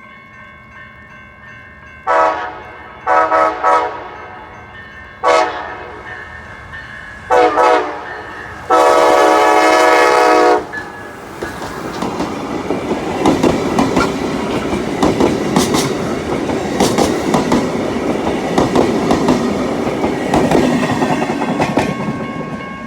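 Amtrak Pere Marquette locomotive's multi-tone air horn played as a horn show: several short blasts at uneven spacing, then one long blast of about two seconds. The train then passes close by, its wheels clattering over the rails.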